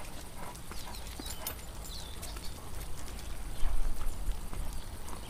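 A Great Dane's paws and nails clicking on a paved driveway as she walks, over a low rumble that swells about three and a half seconds in.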